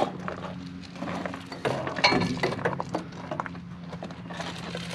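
Steel wire-rope winch cable clinking and knocking against the steel drum and housing of a John Deere 4000 dozer winch as it is handled and pulled, in scattered irregular clinks over a faint steady low hum.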